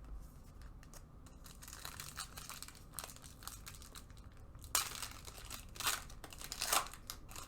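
Foil trading-card pack wrapper crinkling and tearing as it is handled and opened. The crackling is irregular and loudest in a few spells in the second half.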